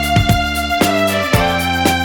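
Background music with held sustained notes over a steady, regular beat.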